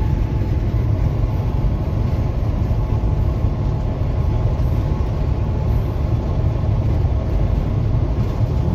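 Steady low rumble of engine and road noise inside a truck cab while driving.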